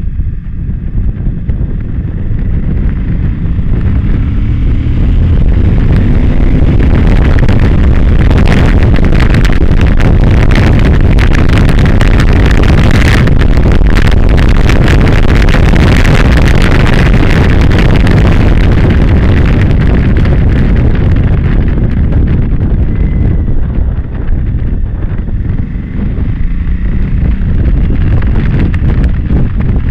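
Suzuki V-Strom motorcycle's V-twin engine accelerating out of a curve, its pitch rising over the first few seconds, then held at speed down a straight under heavy wind rush on the microphone. The rush eases briefly around two-thirds through as the rider slows for the next curve, then builds again.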